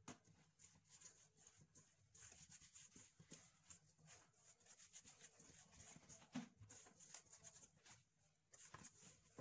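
Faint, irregular squelching and soft knocks of a hand kneading sticky yeast dough in a stainless steel bowl, with one slightly louder knock about six seconds in.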